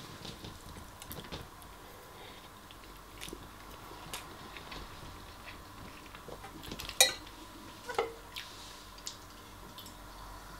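Metal spoon scraping and clinking against a ceramic bowl during eating, with small clicks and chewing between. Two sharp clinks come about seven and eight seconds in, the second ringing briefly.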